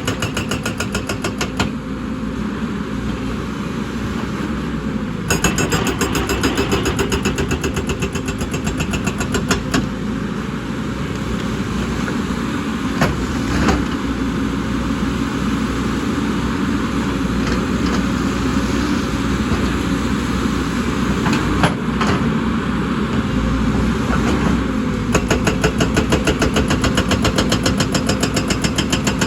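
Excavator's diesel engine running steadily under load, with stretches of rapid, even clatter and a few sharp knocks, as from the machine working rock.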